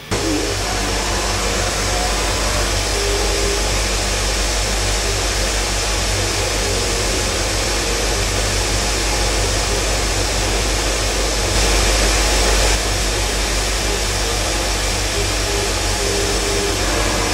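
Haas Multigrind CB CNC tool grinding machine running: a steady whooshing noise over a low hum, a little louder for about a second about two-thirds of the way through.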